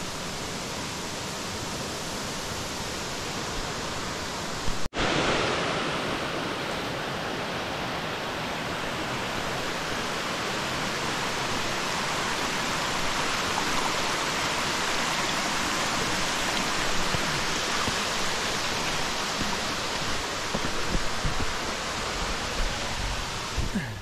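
Steady rush of creek water and a nearby waterfall, an even hiss with no pauses. About five seconds in it drops out for an instant and comes back brighter and a little louder. A few soft low thumps come near the end.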